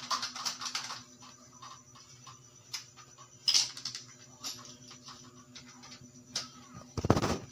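Scattered small clicks and rustles of handling, with a brief burst about halfway and a louder clatter near the end, over a steady low hum.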